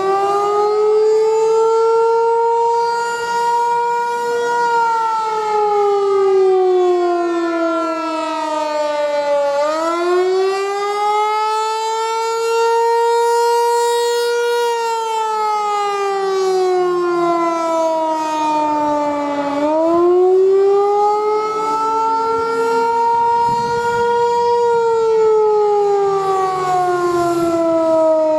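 Federal Signal 508 outdoor warning siren sounding the attack signal: a loud wail that climbs over a few seconds, holds, then falls, repeating about every ten seconds for nearly three cycles.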